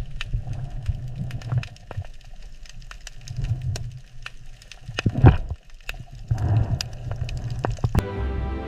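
Scattered crackling clicks over a low rumbling wash that swells and fades, with a louder crack about five seconds in; music begins near the end.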